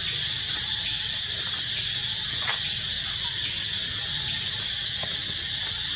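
Steady, high-pitched insect chorus droning without a break, with one short click about two and a half seconds in.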